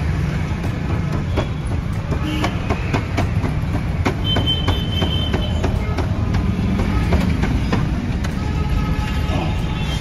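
Repeated light metallic clicks and clinks of hand tools as a mechanic unbolts the silencer and rear wheel of a Suzuki Burgman Street scooter, over a steady low rumble. A short high whine sounds about four seconds in.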